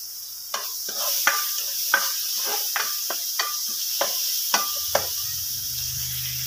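Garlic, ginger, shallots and spices sizzling in melted margarine in a non-stick wok, with a spatula clicking and scraping against the pan about three times a second as they are stirred, stopping about five seconds in.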